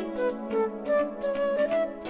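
Flute music: a melody of short notes changing several times a second over a steady low held note.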